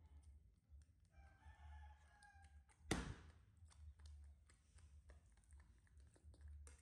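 Near silence with faint small clicks. About a second in comes a faint drawn-out call with a clear pitch, lasting about a second and a half, and just after it a single sharp knock, the loudest sound.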